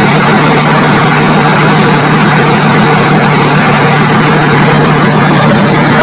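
Heavy diesel engine idling steadily with a constant low hum.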